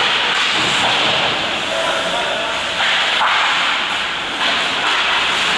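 Ice hockey skates scraping and carving on rink ice, a steady hiss that surges and drops a few times.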